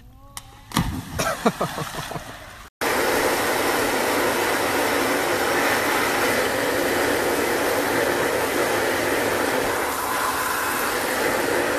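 Hair dryer blowing steadily, switching in abruptly about three seconds in and running on without a break. Before it come a couple of seconds of short, mixed sounds.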